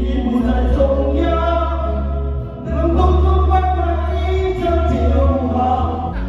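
Singing of a Mandarin pop ballad over backing music with a strong, steady bass line.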